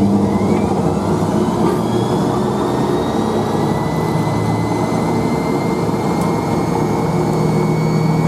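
Hoover Spinarinse 3012A spin dryer spinning up toward its 2,100 RPM spin. A loud steady rush is heard, with a thin whine that climbs slowly in pitch as the drum gathers speed.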